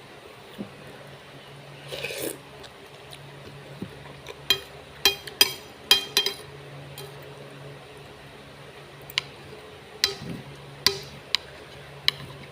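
Eating utensils clinking and tapping against a bowl or dish, a dozen or so sharp clicks in two clusters, with a short rustle about two seconds in, over a steady low hum.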